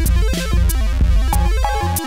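Background music with a steady beat and a heavy bass line, playing over the end credits.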